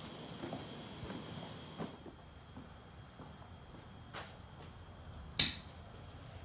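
Compressed-air blow gun hissing as air is blown over bare sandblasted metal, the hiss dropping after about two seconds. About five seconds in comes one short, sharp, loud burst.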